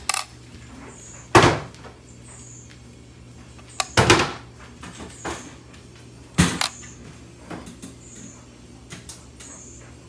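Coins being set down on digital kitchen scale platforms of glass and stainless steel: a few sharp clacks a couple of seconds apart.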